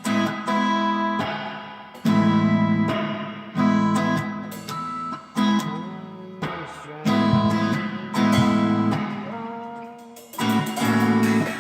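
Guitar strumming the chords of a song's intro. Chords are struck every second or two, each ringing out and fading before the next.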